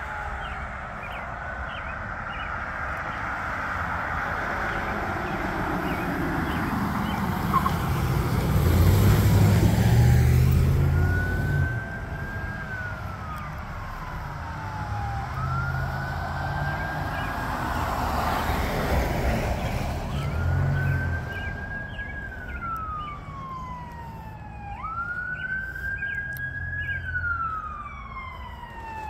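Emergency vehicle sirens on responding police cars and a fire engine. A vehicle rushes past loudly about eight seconds in and another around eighteen seconds. After that the siren cycles over and over, rising quickly and falling slowly every few seconds.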